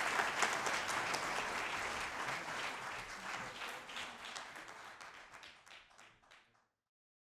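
Audience applauding, a dense patter of many hands clapping that fades out steadily and ends in silence near the end.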